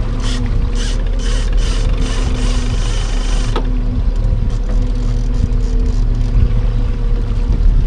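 Boat's outboard motor running steadily at trolling speed. For the first three and a half seconds a pulsing mechanical rattle from the gear at the rail sounds over it, ending in a sharp click.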